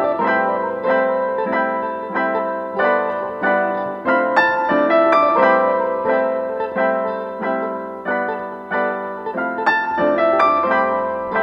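Background piano music: a gentle melody of single notes struck at an even pace.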